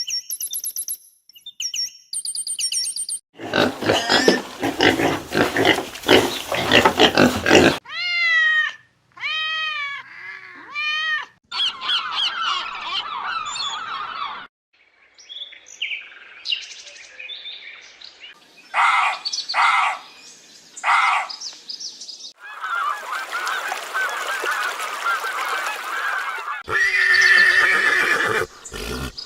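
A run of animal calls and cries from several short clips cut one after another, each starting and stopping abruptly, among them arching, honking calls.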